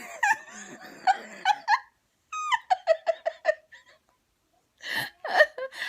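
A woman laughing helplessly in breathy gasps and a quick run of short, high-pitched pulses, with a pause of about a second before more laughter near the end.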